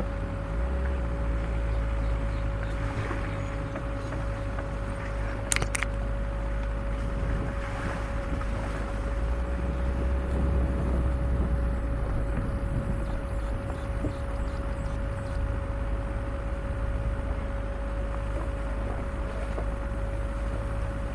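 Off-road vehicle driving slowly over a rough track: a steady low rumble of engine and tyres with a constant whine on top, and one sharp click about five and a half seconds in.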